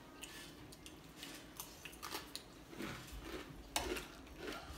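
Spoon and chopsticks clicking and scraping against porcelain serving plates while food is taken, with a sharper clink a little before the end.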